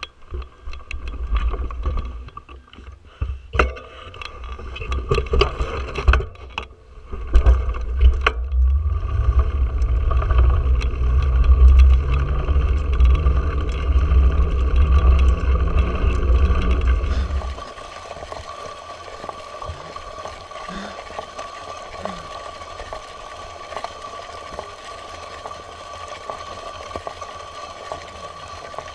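Mountain bike ridden over a rough dirt road, heard from a handlebar-mounted camera: low wind rumble on the microphone with clicks and knocks of the bike rattling over bumps. About two-thirds of the way through it changes abruptly to a quieter, steady hiss.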